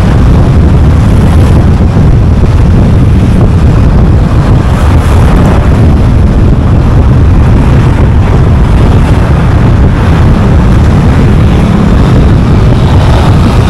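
Steady, loud rumble of road and wind noise from a car driving along a highway.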